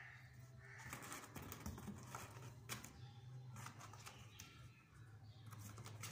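Faint scattered clicks and rustles of kittens' claws scrabbling on a cardboard box and the cloth lining it, over a steady low hum.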